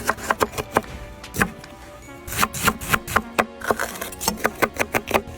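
Knife chopping vegetables on a cutting board in quick, irregular strokes, over background music.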